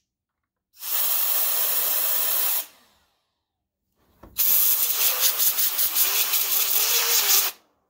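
Compressed air from a blow-gun nozzle hissing into a DLP projector's blower-fan vent in two blasts, the second longer and louder. Through the second blast the air flutters rapidly and a faint wavering whine comes from the fan being spun by the airflow, kept to about 10 to 15 PSI so that the fan does not overspeed.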